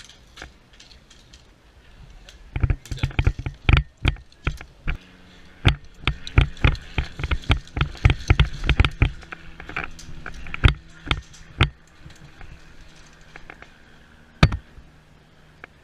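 Airsoft guns firing: sharp single shots in irregular clusters, several a second at the busiest, thinning out and ending with one last shot near the end.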